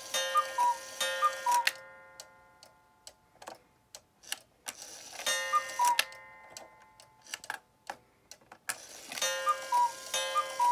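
Regula cuckoo clock striking with its back on: the cuckoo calls its two falling notes several times, each call with a ringing strike on the gong, in three groups with pauses between. The clock ticks through the pauses.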